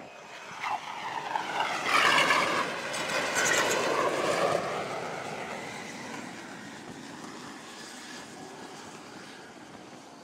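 F-35 fighter jet's engine roaring as the jet touches down and catches the arresting wire on a carrier deck. The jet noise swells over the first couple of seconds with a sweeping whoosh, is loudest for about two seconds, then slowly fades away.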